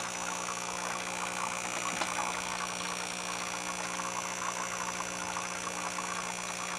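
PCB bubble etcher running: a steady hum from its air pump, with air bubbling through the etchant tank.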